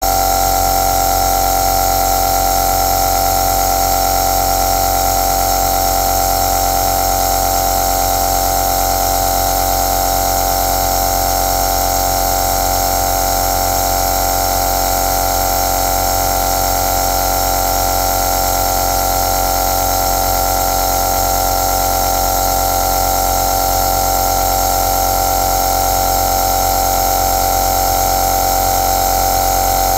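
Electric compressor nebulizer running steadily: an even mechanical hum with several held tones, one of them strong in the middle range.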